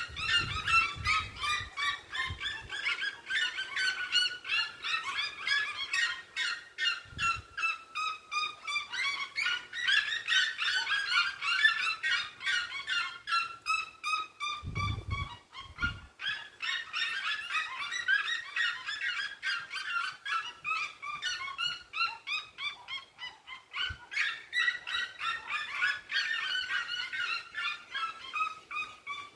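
Red-legged seriemas calling together at dusk: several birds overlap in long runs of rapid, repeated yelping notes that fall in pitch. A few low thumps come near the start and again about halfway through.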